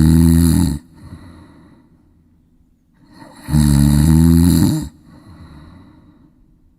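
Duck snoring: two loud, pitched snores about three seconds apart, each a little over a second long, with a much fainter breath between them.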